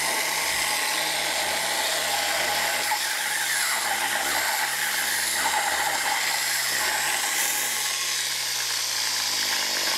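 Belt-driven rotors of a Magnus-effect plane, model rocket tubes spun by an electric motor, running at speed with a quite loud, steady whir and hiss. Near the end the low hum drops in pitch as the rotors begin to spool down.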